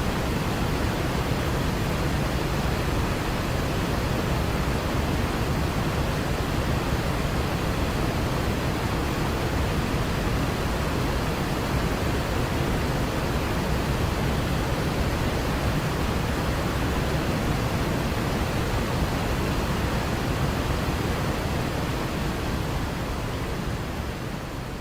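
Waterfall rushing, a steady even roar of falling water that begins to fade out near the end.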